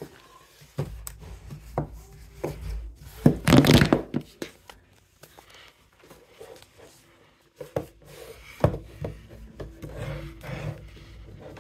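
Hands handling objects right against the phone's microphone: rubbing and scuffing with scattered knocks. The loudest rubbing comes about three and a half seconds in, then it goes quiet for a couple of seconds before the handling starts again.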